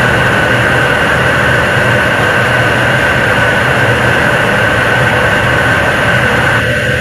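Nuri third-stage 7-ton-class kerosene–liquid-oxygen rocket engine firing steadily during a long-duration hot-fire test, a loud continuous rush of exhaust and steam with a high hiss running through it. Part of the middle of the noise falls away shortly before the end.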